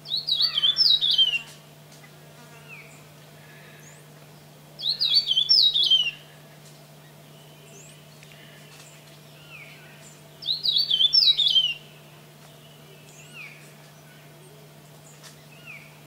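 Grey-throated warbling finch singing three short songs a few seconds apart. Each song is a fast, high twittering phrase that drops in pitch at the end, with a few faint single call notes between songs. A steady low hum lies under it.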